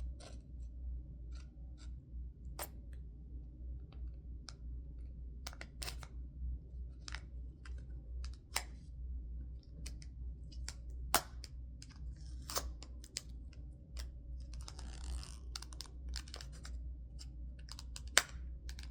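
Packaging of a squishy toy being worked open: scattered sharp clicks and a brief crinkling crackle, over a steady low hum.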